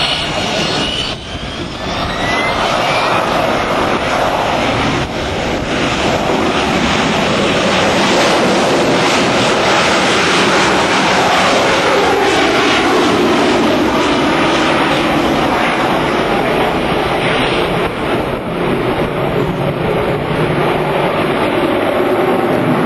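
AV-8 Harrier's Pegasus vectored-thrust turbofan running at high power: loud, steady jet noise with a faint rising whine a second or two in.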